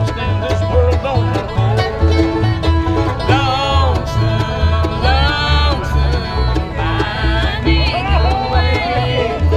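Acoustic bluegrass band playing live: fiddle and acoustic guitars with other plucked strings over a steady beat of about two low pulses a second, with long sliding melody notes from about three seconds in.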